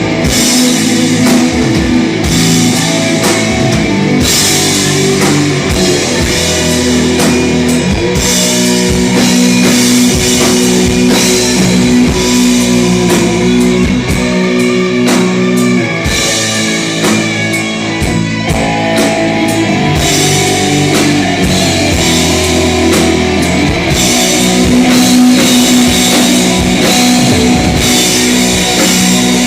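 A rock band playing live with electric guitar and drum kit, loud and continuous, during a sound check.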